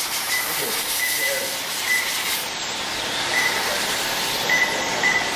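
Electric radio-controlled race cars running flat out on a tarmac track: a steady hiss of motors, drivetrains and tyres, with a series of short high beeps scattered through it.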